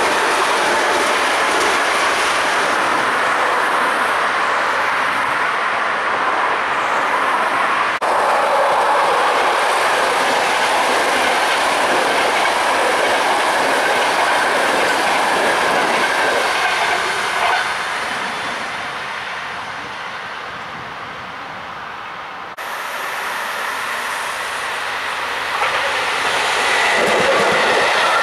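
A ČD passenger train of blue-and-white coaches rolling past close by, its wheels running over the rails with a steady clatter. The noise eases for a few seconds past the middle, then swells back up near the end.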